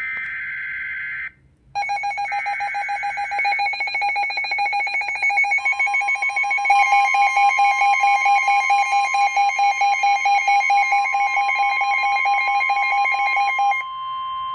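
Emergency Alert System alert: a short burst of screeching digital data tones, then, after a brief pause, the loud, steady electronic attention alarm tone. A further tone joins about five to six seconds in and the alarm grows louder; it cuts off shortly before the end, leaving a fainter tone.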